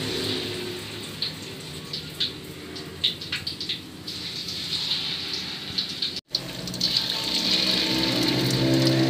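Battered horn-plantain (pisang tanduk) slices deep-frying in hot oil in a wok, sizzling with scattered crackles and spits. About six seconds in the sizzle turns steadier and louder, with a low hum underneath.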